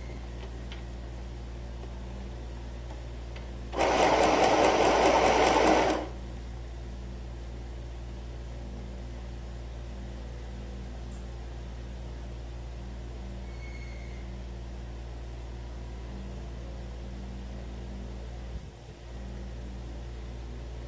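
Electric sewing machine stitching in one short run of about two seconds, about four seconds in, a quick even rattle of needle strokes. A steady low hum runs underneath.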